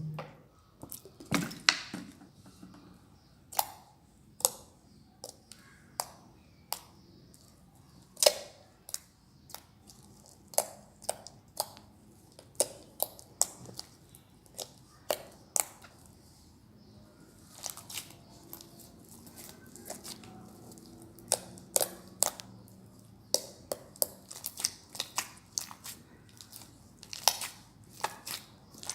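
Butter slime being worked by hand, giving off irregular sharp pops and clicks, at times several a second in quick clusters.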